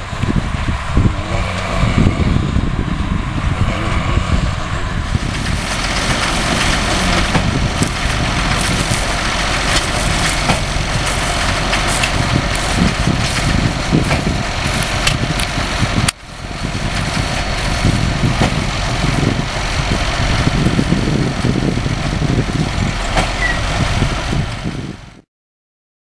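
Case IH Magnum tractor pulling a New Holland BB 980 big square baler at work: a steady, heavy mix of engine and machinery noise with many irregular knocks. It breaks off briefly about two-thirds through, carries on, then cuts off abruptly just before the end.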